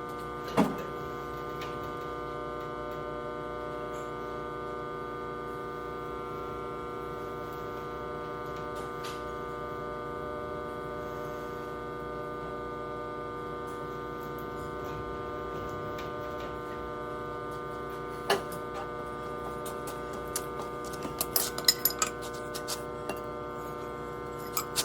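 Steady electrical hum, with a sharp click about half a second in and a cluster of light clicks and clinks near the end.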